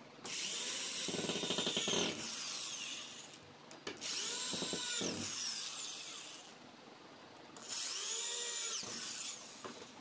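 Cordless drill-driver driving screws into a door lock's handle plate: three runs of two to three seconds each, its motor whine winding up and down.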